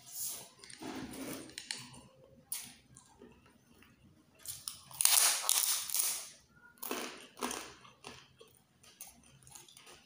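Close-up eating sounds of snails in coconut milk being eaten by hand: short wet sucks and chews as the meat is drawn from the shells, with one longer, louder suck lasting about two seconds in the middle.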